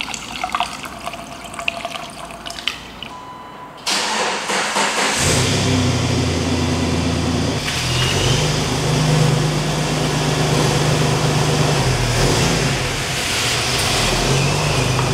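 Coolant trickling into a radiator filler with small clicks. About four seconds in, this gives way suddenly to a Jeep Wrangler TJ engine running with a steady low drone and a loud hiss over it.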